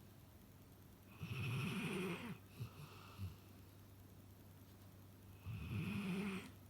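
Dog snoring: two long snores about four seconds apart, the first followed by a couple of short snuffles.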